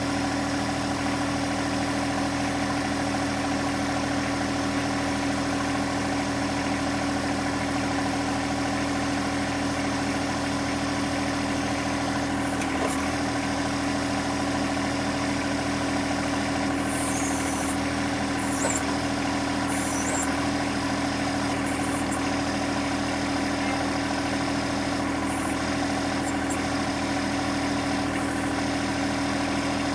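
John Deere 1025R compact tractor's three-cylinder diesel engine idling steadily, with a few brief hisses in the second half.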